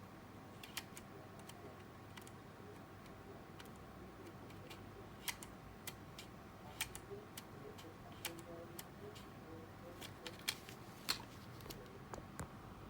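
Faint, irregular light clicks and taps of small parts being handled, more frequent in the second half, over a faint steady electrical hum.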